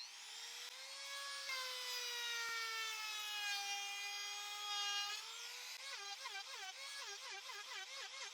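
Electric router with a 30 mm round-over bit, rounding over the edges of a wooden piece. The motor spins up to a high whine, its pitch sinks and holds lower for a few seconds as the bit cuts, then wavers up and down a couple of times a second over the last few seconds.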